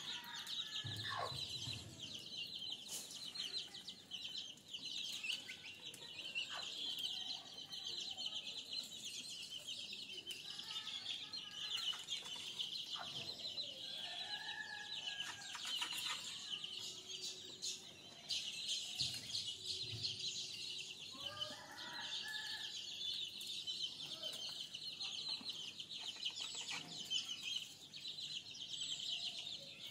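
Chickens clucking off and on while they feed, over a steady high-pitched chatter.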